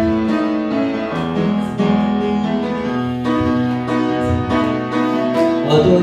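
Keyboard playing the instrumental introduction to a worship song, a steady run of held chords over a bass line.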